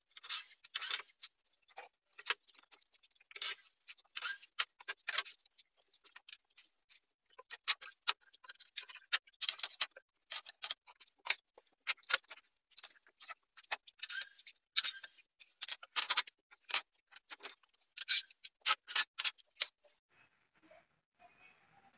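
Irregular short clacks, taps and scrapes of wooden boards and hand tools being handled while a melamine blockboard cabinet frame is put together; they stop near the end.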